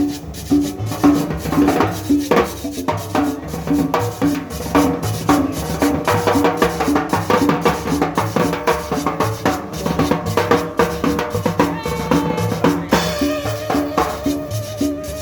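Upbeat Latin dance music with a steady drum beat and bass.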